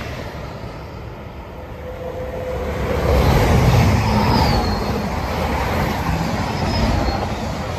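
Passenger train running through the station close by on the near line. Its noise builds about three seconds in as the front reaches the platform and stays loud while the coaches go past.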